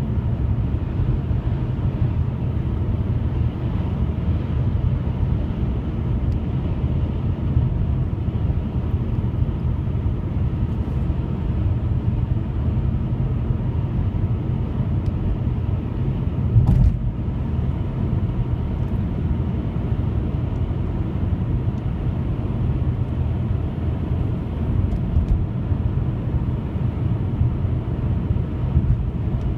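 Steady low rumbling drone outdoors, with one brief thump about 17 seconds in.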